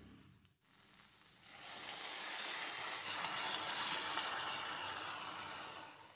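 Boiled water poured into a hot pan of fried masala and potatoes, sizzling as it hits the pan. The sizzle builds about a second and a half in and fades away near the end.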